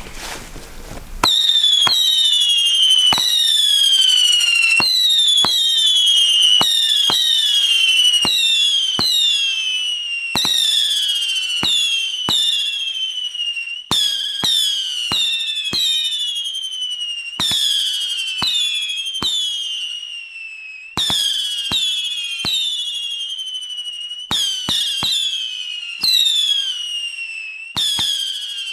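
Four Roman candles lit together, firing whistling shots in a rapid, overlapping series: each shot leaves the tube with a sharp pop followed by a whistle that falls in pitch. The barrage starts about a second in.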